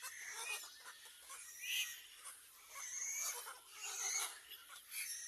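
Baby crows giving a series of short, raspy, harsh calls, the loudest about two, three and four seconds in.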